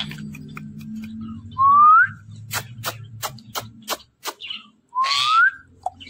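Indian ringneck parakeet giving two rising whistles, one about one and a half seconds in and one about five seconds in. Between them comes a quick run of about seven sharp clicks.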